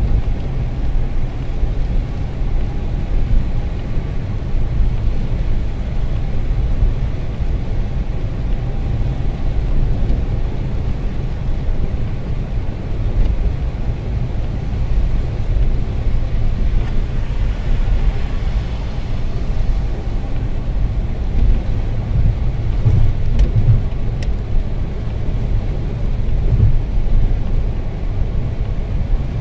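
Steady low rumble of a car driving on a wet highway, heard from inside the cabin: engine and tyre noise on a rain-soaked road. A brief rush of hiss comes just past the middle.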